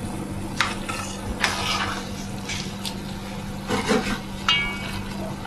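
Metal utensil scraping and knocking against pots as cooked pasta is lifted out of its cooking water, dripping and undrained, into the sauce pot, with one ringing metal clink about four and a half seconds in. A steady low hum runs underneath.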